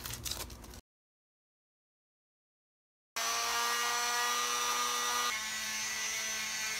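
Electric detail sander with a triangular pad, running and sanding a wooden door threshold. It starts abruptly about three seconds in with a steady whine, which drops a little in pitch and level a couple of seconds later. It follows a brief scratchy rubbing and a silent gap.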